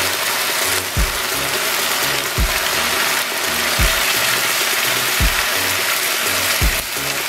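Soaked dried jujubes frying in hot mustard oil, with a steady sizzle. Background music plays over it, with a deep falling beat about every second and a half.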